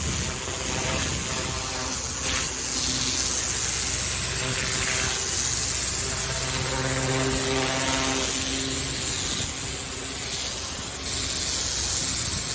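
Pressure washer running, a steady engine drone under the hiss of the high-pressure water jet spraying paving.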